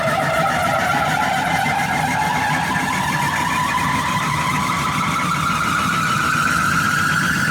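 Car audio system playing a loud test tone for an SPL (sound pressure level) measurement, its pitch rising slowly and steadily, over a low rumble.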